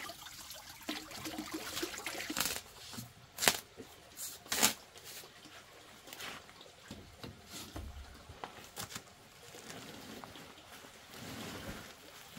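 A knife slitting a paper cement sack: scraping and rustling of heavy paper, with two sharp knocks about a second apart a little over three seconds in. Near the end the sack is tipped and cement powder starts to pour out onto the sand.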